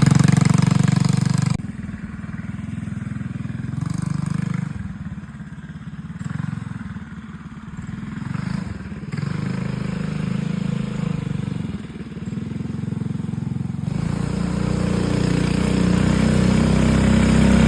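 Trailmaster Hurricane 200X minibike's 212 cc Predator Ghost single-cylinder OHV engine with a Stage 2 exhaust, running on a ride. It is loud at first, drops back suddenly about one and a half seconds in, runs at lower, uneven revs for a long stretch, then climbs back to full throttle over the last few seconds.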